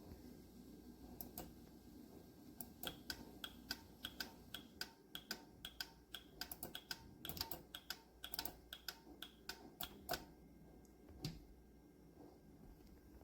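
A quick, irregular run of light clicks and taps, bunched most thickly in the middle and tailing off with a last click about eleven seconds in.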